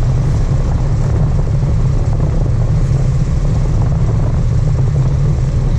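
A sport-fishing boat's engine running steadily: a loud, even low drone with a hiss of water and air noise over it.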